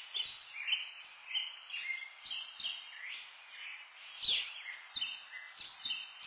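Small birds chirping and whistling over a steady background hiss, an outdoor ambience of many short, rising calls.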